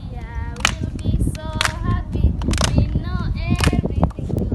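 Voices singing a drawn-out tune, with sharp hand claps about once a second.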